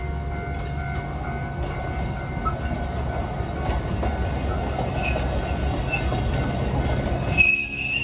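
Alishan Forest Railway passenger carriages rolling past on the track, a steady rumble with wheel clatter. A short high-pitched squeal comes near the end.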